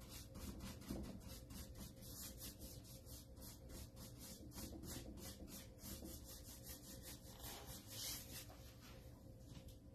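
Paintbrush scrubbing chalk-style paint onto a small bookshelf while laying on a first coat: a faint, quick, even back-and-forth of about four to five strokes a second.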